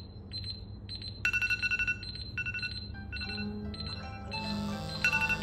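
Alarm and timer tones from several smartphones, including an Honor 7C and Samsung Galaxy phones, sounding at once. A repeated high electronic beeping is joined by more melodic alarm ringtones from about three seconds in, building into an overlapping jumble of tones.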